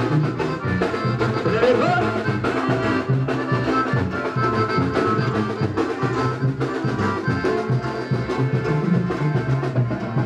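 Brass band music in an instrumental passage: brass and drums over a steady bass beat, with no singing.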